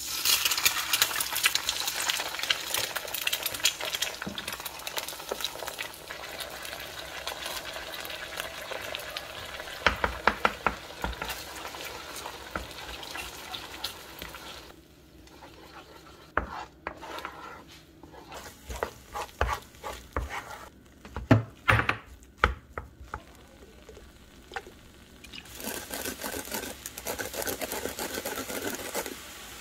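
Egg sizzling as it fries in oil in a nonstick frying pan, with a wooden spatula stirring and clicking against the pan. About halfway through, the sizzle drops to a quieter stretch of scattered knocks and scrapes. Near the end a steady sizzle returns as rice is stir-fried with a silicone spatula.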